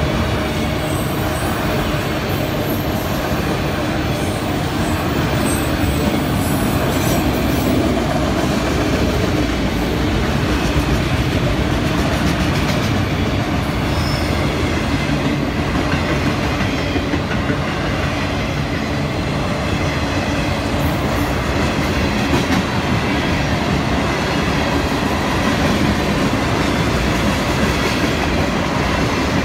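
Freight cars of a Florida East Coast Railway train rolling past, autoracks and then tank cars. The steel wheels on the rails make a steady, unbroken rumble and clatter.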